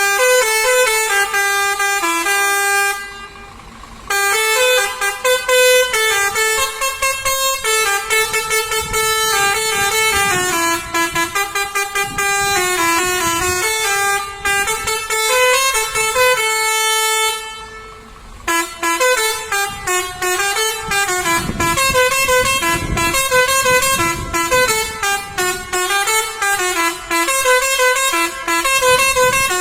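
A lorry's telolet horn, a multi-note air horn, playing a quick tune of stepped notes. It breaks off briefly twice, about 3 and 17 seconds in, with a low rumble beneath at times.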